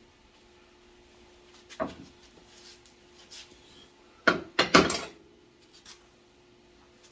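Hard objects knocking and clanking, as when tools or metal parts are handled and set down: one sharp knock, then about two seconds later a quick run of three loud clanks, over a faint steady hum.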